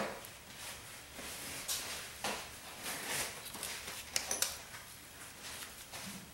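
Faint handling sounds: scattered light clicks and short scrapes, with a small cluster of clicks about four seconds in.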